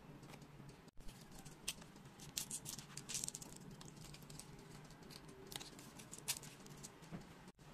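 Foam-board 3D puzzle pieces being handled and slotted together: light scratching and clicking of the paper-faced foam, busiest around three seconds in.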